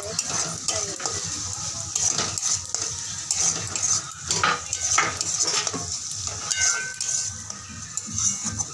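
A steel spatula scrapes and knocks against a steel karai as it stirs a cooked-down masala of onion, garlic, tomato and green chilli, which sizzles in the hot oil.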